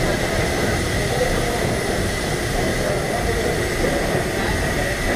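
Steady engine-room machinery noise of a WWII Liberty ship under way, its triple-expansion steam engine running, with a steady high whine above the low rumble.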